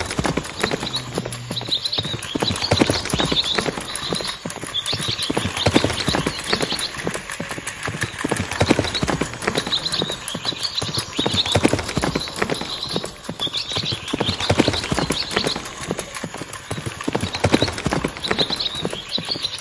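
Motorised walking toy horse pulling a cart, with a fast, steady clip-clop of hoof clicks.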